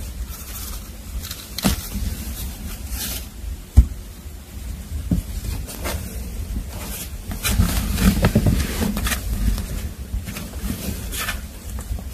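Rustling and rubbing against blankets and cardboard inside a box, in short scattered bursts, with one sharp knock about four seconds in.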